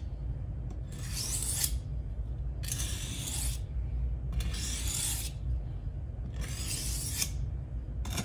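Steel fillet knife blade drawn along a wetted two-sided sharpening stone: four long scraping strokes, each about a second long, coming roughly every two seconds.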